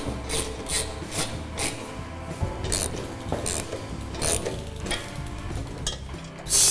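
Background music with a steady beat. Near the end, a loud rush of compressed air hisses from an air hose fitted to a dented two-stroke expansion chamber, pressurising the pipe to push its dents out.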